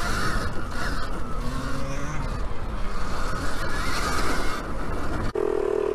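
Alta Redshift MXR electric dirt bike riding off-road: rushing wind and the rattle of chain and suspension, with the electric motor's whine wavering up and down. About five seconds in, the sound cuts suddenly to a steady, lower hum.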